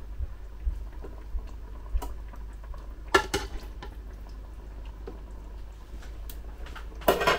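Rice and stock bubbling gently in a pot, with tongs and a plate knocking against the pot's rim: small clicks, a couple of sharp clacks about three seconds in, and a louder clatter near the end.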